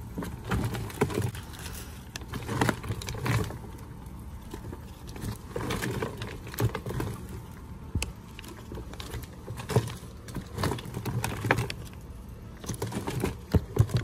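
Dual-chamber plastic compost tumbler being turned by hand, giving irregular knocks and scrapes as the wet compost inside tumbles around.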